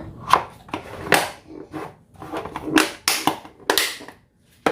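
A lunchbox being handled and closed: a run of sharp clicks and knocks, with short pauses between them.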